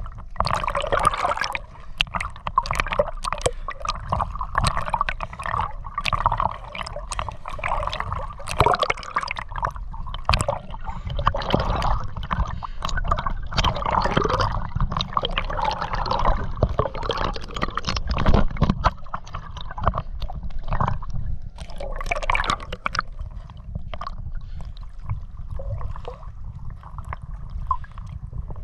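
Sea water splashing and gurgling around a swimmer doing sidestroke, a continuous irregular run of splashes and bubbling strokes.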